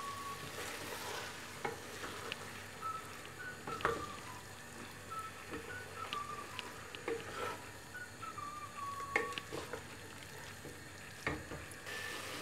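Raw chicken pieces sizzling in hot oil in an aluminium pressure cooker as they are stirred with a wooden spatula, with scattered scrapes and knocks of the spatula against the pot.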